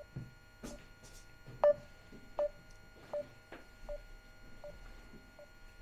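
Video-call app's alert tone: short beeps on one low pitch, repeating about every three-quarters of a second, signalling that the call's connection has dropped.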